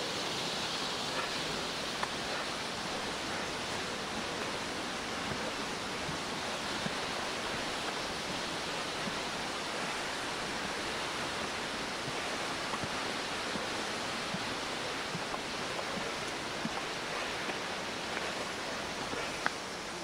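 Steady rushing roar of a waterfall, with a few faint knocks and a sharper one near the end.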